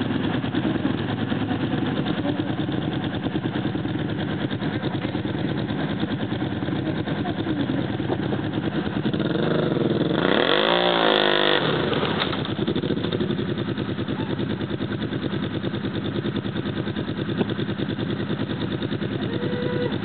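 A quad bike (ATV) engine runs steadily while the machine sits bogged in deep mud. About ten seconds in it is revved once, its pitch rising and then falling as the rider tries to drive out.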